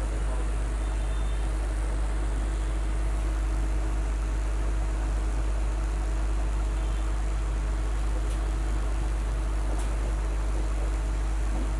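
Hot air rework gun blowing a steady stream of air, with a low hum underneath, heating a phone motherboard's network IC to desolder it.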